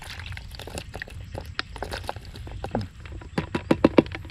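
Minnows and water being tipped out of a bottle fish trap: scattered small clicks and taps, then a quick run of about six loud knocks about three and a half seconds in.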